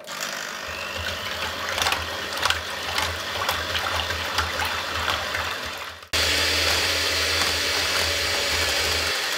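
Electric hand mixer running, its beaters whipping cream in a glass bowl, with scattered clicks over the first few seconds. About six seconds in it breaks off for an instant and resumes louder and steadier.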